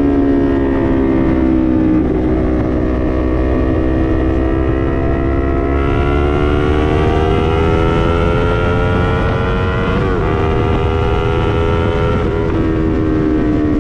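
Yamaha MT-03's parallel-twin engine through an SC-Project full exhaust system, running on the road with its pitch climbing slowly and steadily for several seconds. There is a brief break in the pitch about ten seconds in, and the engine eases off to a lower pitch near the end.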